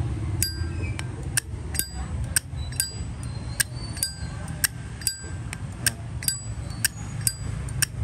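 Zippo lighter lid flicked open and snapped shut over and over, about two sharp metallic clinks a second, many with a brief ringing tone. The clink is clear and crisp, the sound of a strong cam and a good hinge.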